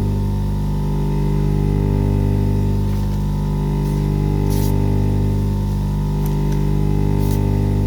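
Electric polishing buffer motor running with a steady hum, with a few brief scratchy hisses as the blade is worked against the buffing mop.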